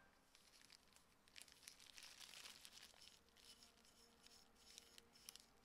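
Very faint crinkling and rustling of a thin plastic glove and a brush working a finish onto a small carved spruce bird, with scattered soft crackles that are densest around the middle.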